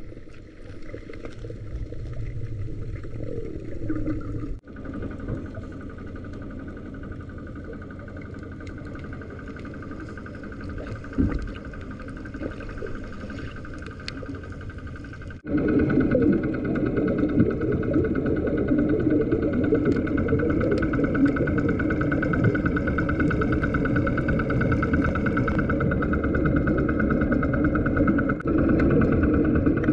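Steady engine drone heard underwater, as it comes through an action camera's waterproof housing, with a low wash of water noise; it grows clearly louder about halfway through.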